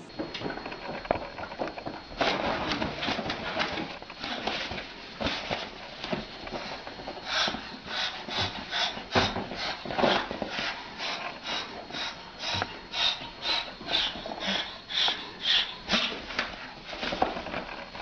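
White cockatoo hissing in short, harsh, breathy huffs, about two a second, in a threat display at a cat.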